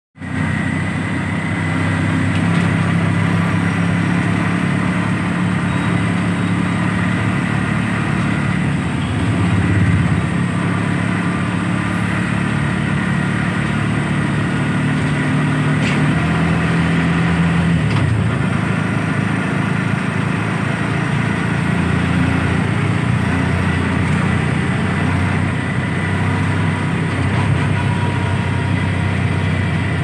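Steady engine and road noise of a moving road vehicle, heard from inside it; the engine hum shifts pitch a few times.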